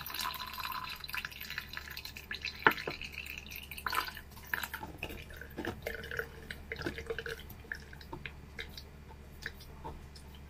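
Blended pandan juice dripping and trickling through a strainer into a plastic measuring jug: irregular drops and small splashes that thin out toward the end as the straining finishes.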